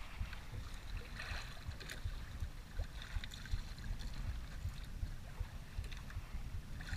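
Wind buffeting the microphone over water sloshing and splashing against a small boat's hull on a choppy sea.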